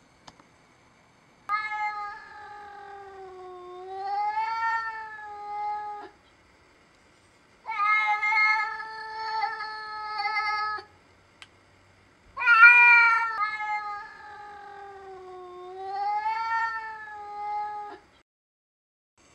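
A cat yowling in three long, wavering calls of several seconds each, the pitch sagging and rising within each call; the third call is the loudest as it begins.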